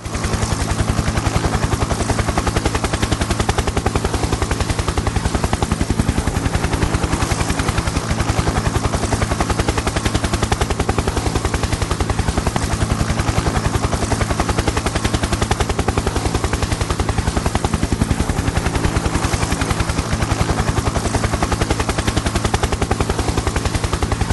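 Helicopter close by, its rotor blades chopping in a fast, even beat over a steady low hum.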